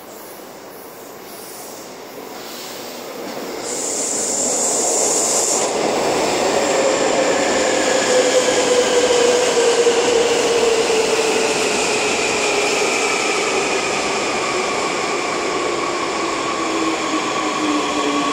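Seoul Subway Line 2 electric train pulling into the station. Its running noise builds over the first few seconds, with a brief high squeal about four seconds in. Then, as it brakes along the platform, its traction motors whine in several tones that fall steadily in pitch.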